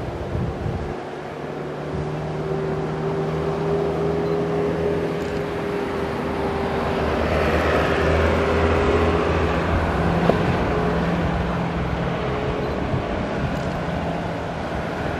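A motor engine running steadily as it passes, with a low hum that grows louder to a peak about halfway through and then fades.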